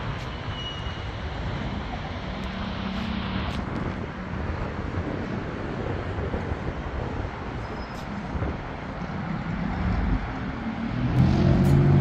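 Steady hum of city road traffic. Music comes in about a second before the end.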